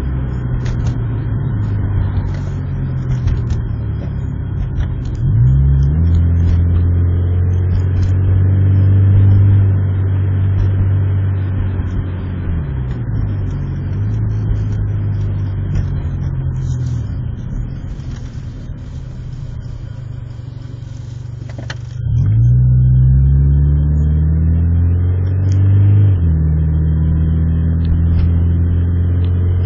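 Honda Civic EJ1 engine running through the gears, its pitch gliding up and dropping several times, with a sudden surge in loudness about 22 seconds in. This is acceleration through the gears, where the owner reports a jumping misfire.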